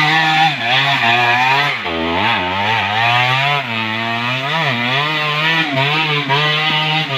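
Small engine running and being revved up and down over and over, its pitch rising and falling every half second or so.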